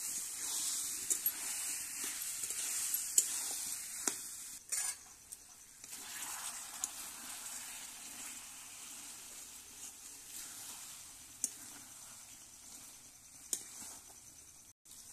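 Chicken and potato curry sizzling in a metal karahi as a metal spatula stirs and turns it, with scrapes and sharp clinks of the spatula against the pan now and then. The masala is frying in the oil it has released, and the sizzle dies down toward the end.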